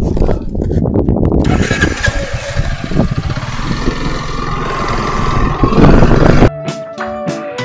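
Scooter engine pulling away from a standstill and gathering speed, with wind noise on the microphone building as it goes. About six and a half seconds in it cuts off abruptly and plucked acoustic guitar music takes over.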